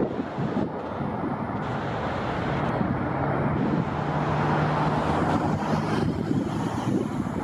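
Jet airliner engines on landing approach: a steady rumble with a low hum through the middle, and wind on the microphone.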